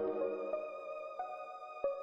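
Background music: soft, held instrumental notes that change pitch every half second or so, with no beat.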